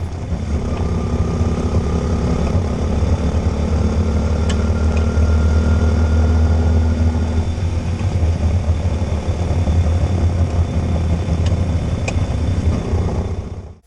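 APTrikes125 trike's 125 cc engine running steadily with a low hum, with a few faint sharp clicks about four seconds in and again near the end. The clicks fit the front-end clicking traced to a rusted, crumbling front hub bearing.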